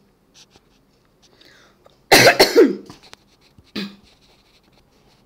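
A woman coughs: one loud cough lasting under a second, about two seconds in, followed near four seconds by a short, fainter sound from the throat.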